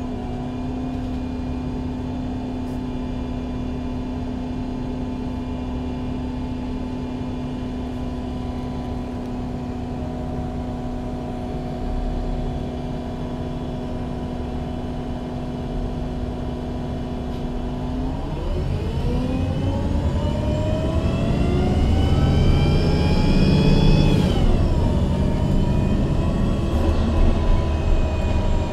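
MAN Lion's City G articulated bus with a CNG engine and Voith automatic gearbox, idling steadily, then pulling away about two-thirds of the way in. The whine of engine and gearbox rises for several seconds, then drops sharply at an upshift near the end.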